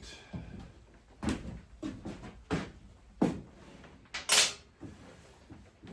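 Metal hand tools and engine parts being handled during a motorcycle top-end teardown: about six separate sharp knocks and clunks, the loudest a brief rattle about four seconds in.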